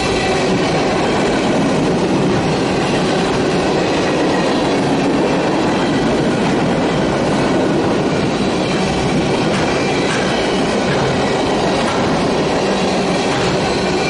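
Loaded flatcars of a freight train rolling past at close range: a steady, loud rumble and clatter of steel wheels on rail, with a few faint, thin whining tones over it.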